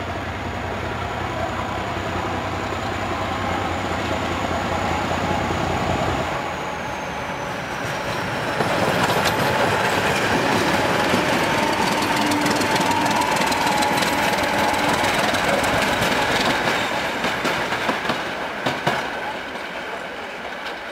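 Two coupled class 751 diesel locomotives, both running without exhaust silencers, with their engines working. A high whistle slides down in pitch about six seconds in. The sound grows louder from about eight seconds as the pair passes close by, with wheels clicking over rail joints, and eases off near the end.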